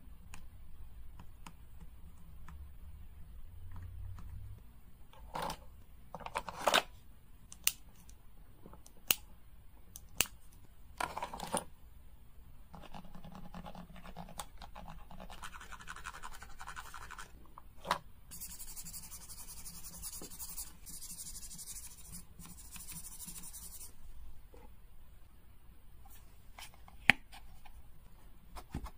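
A nail file scratching over a doll's plastic fingers, with scattered sharp clicks and taps of tools against plastic. The loudest sound is a single sharp click near the end.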